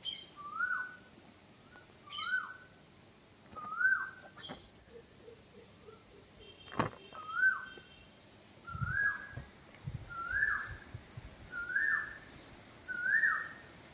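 A bird repeating the same short whistled call about every second and a half, each call rising then falling, with a faint high-pitched trill behind it.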